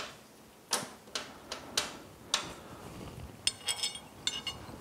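Small steel parts clicking against a Yamaha F225 lower unit's drive shaft as a bearing and spacer are fitted onto it: about six sharp clicks, then light ringing metallic clinks near the end.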